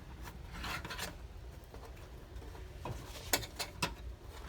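Small sharp clicks and a brief rustle of handling as a DIN N262 wind-up hose clamp's metal band is fitted around a hose, with a cluster of clicks near the end.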